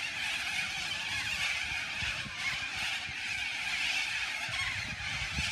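A large flock of little corellas calling all at once, a continuous dense screeching din from many birds together, over a low rumble of city traffic.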